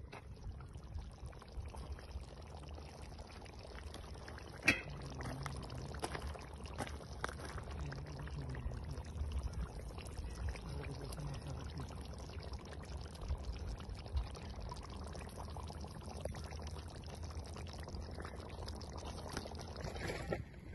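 Chicken karahi curry simmering and bubbling in a metal pot, a steady wet bubbling with many small pops. The pot's metal lid clinks once, sharply, about five seconds in.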